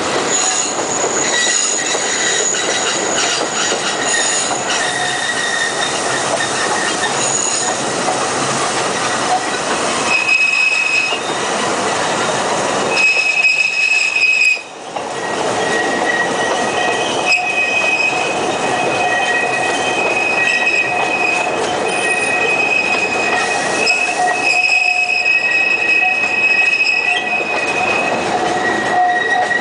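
Alishan Forest Railway steam train's wooden carriages running over the track, heard from a carriage window. The wheels give high, steady squeals that come and go on the curves over a constant rumble of the running gear.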